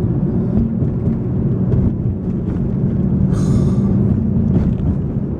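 Engine and road noise inside a moving car's cabin: a steady low rumble, with a brief hiss about three and a half seconds in.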